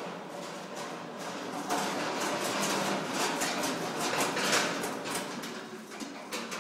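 Metal roll-cage trolleys rattling and clanking as they are moved by an electric trolley mover, with a steady low hum underneath.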